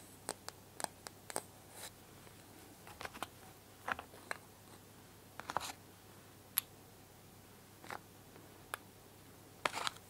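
Painted wooden toy pieces clicking and clacking as they are lifted out of a wooden puzzle board and dropped into a small toy cup: scattered light knocks, some in quick little clusters.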